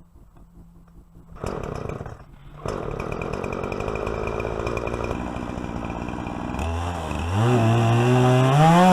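Poulan Pro 50cc two-stroke chainsaw starting up about a second and a half in, faltering briefly, then running steadily before revving up, its pitch rising over the last two seconds.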